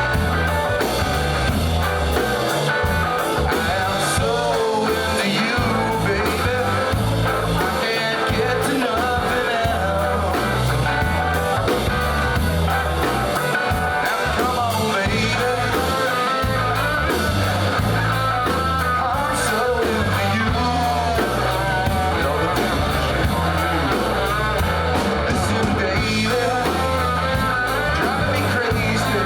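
Rock song with singing and guitar over a steady beat, played from a push-button radio.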